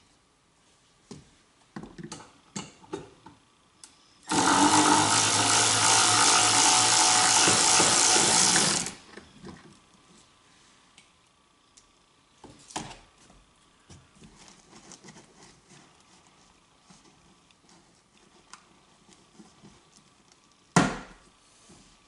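Cordless power driver runs steadily for about four and a half seconds, starting about four seconds in, backing out an 8 mm screw that holds the roof grab handle. Small clicks and taps of handling come before and after it, and a single sharp knock comes near the end.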